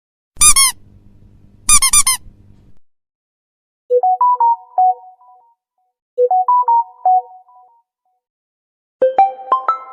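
Phone notification tones played one after another: two short chirps, then a brief tune of a few quick notes played twice, and a new tone with a quick run of notes starting near the end.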